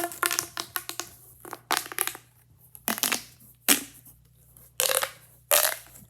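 Plastic fidget toys being handled and squeezed: a short crunching rustle about once a second.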